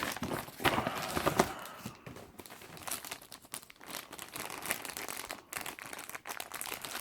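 Packaging being handled and unwrapped: crinkling and rustling with many short clicks, busiest in the first second and a half, then lighter and more scattered.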